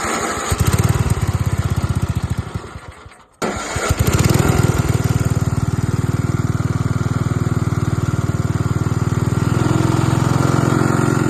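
The small engine of a John Deere 56 riding mower running on fresh gas after sitting for about two years. It runs, dies away about three seconds in, then runs again and keeps running steadily.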